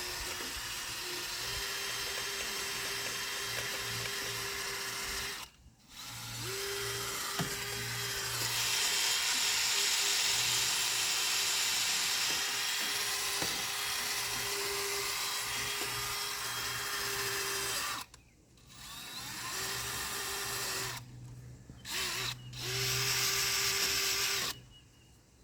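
Electric motor whirring at a steady pitch in several runs, cutting out briefly a few times and then stopping with a few short bursts near the end.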